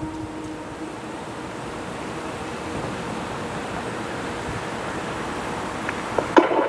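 The steady tone of a Whelen WPS-2750 electronic warning siren dies away in the first moments, leaving a steady, even background rush; near the end a couple of sharp clicks come from the siren's loudspeakers as they key up for a voice announcement.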